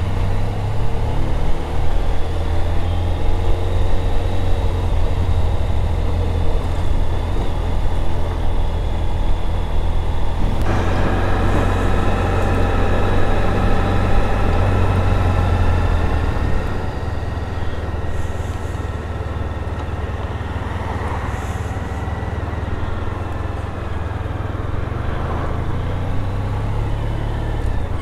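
Motorcycle being ridden on the road: a steady low rumble of engine and wind. About ten seconds in, several steady engine tones come in on top. The sound eases off somewhat around sixteen seconds in.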